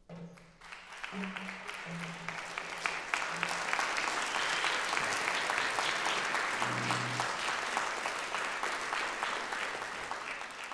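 Audience applause: a dense patter of many hands clapping that breaks out suddenly, builds within about a second and then holds steady.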